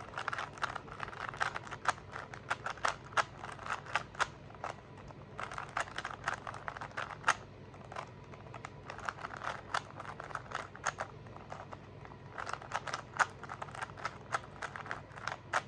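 Rubik's cube faces being turned by hand: quick runs of small plastic clicks and clacks, several turns in a burst, with short pauses in between.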